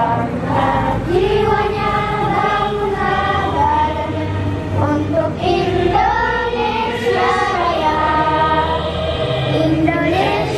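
A large group of girls singing a patriotic song together in unison, unaccompanied by any heard instrument, the nearest voices loudest.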